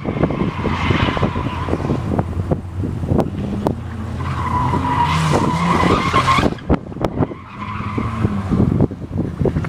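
Mazda RX-7 (FC3S) drifting: tires squealing in three long stretches while the engine revs up and down, with a few sharp pops in between.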